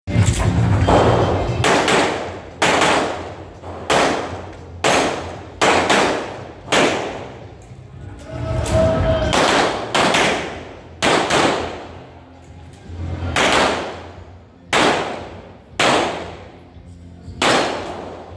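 1911 pistol fired shot after shot in a stage of fire, some fifteen sharp shots spaced roughly a second apart, each with a short echo.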